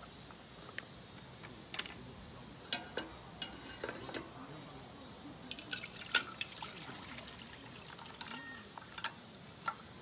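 Liquid dripping and pouring into a metal camping pot, with scattered small clicks and splashes as food packets are emptied into it. The clicks are busiest around the middle.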